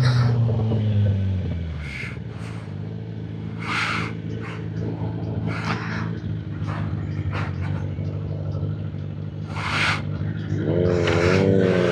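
Sport motorcycle's inline-four engine dropping in revs as the bike slows, then idling steadily for several seconds with scattered brief hissing bursts. Near the end the revs rise again as the bike pulls away.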